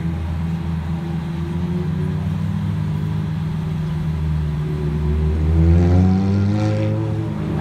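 Lamborghini Gallardo's V10 engine running at low speed as the car creeps along. About five seconds in the revs rise, then ease off a second later.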